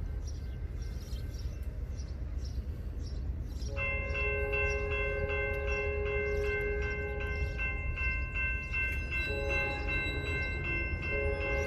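A General Signals type-2 electronic crossing bell starts ringing about four seconds in, a rapid repeating electronic ding, as the crossing activates for an approaching train. Under it, the train's horn sounds long blasts in the distance.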